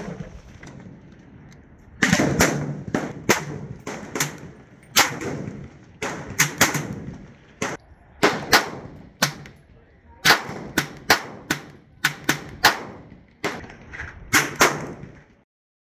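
A rapid, irregular string of gunshots, roughly two a second, each sharp crack trailing a short echo. A quieter stretch comes first, and the shots start about two seconds in, then cut off abruptly near the end.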